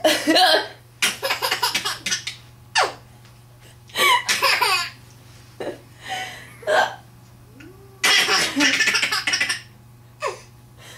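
A woman hiccuping several times, each hiccup short and sharp, with longer bursts of laughter from someone else in between.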